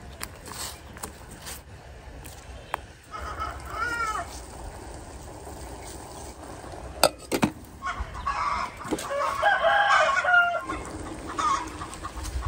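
A rooster crowing twice, a shorter crow about three seconds in and a longer, louder one about eight seconds in, with a few sharp clicks in between.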